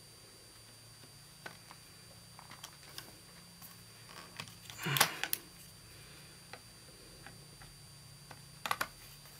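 Small metal clicks and scrapes of a replacement part being fitted and pinned into a Mossberg 590 Shockwave shotgun's receiver, with a louder scraping rattle about halfway through and a quick run of clicks near the end.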